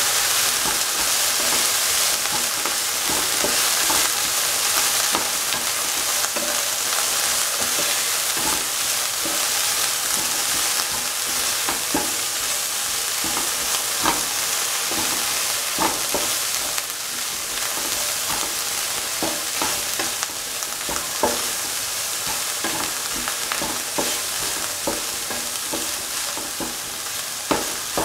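Chopped okra sautéing in hot oil in a pan: a steady sizzle while it is stirred with a spatula, which scrapes and taps against the pan now and then, more often in the second half.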